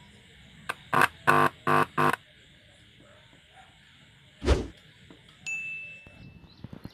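Four short chime-like notes in quick succession, then a single low thump about four and a half seconds in, and a steady high beep that fades away.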